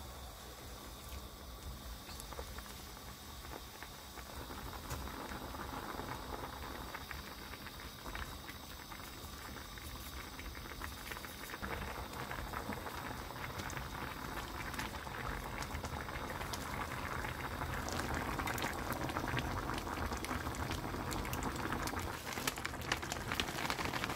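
A pot of spicy noodle soup boiling on a gas stove, the broth bubbling and crackling, growing steadily louder as it comes to a rolling boil.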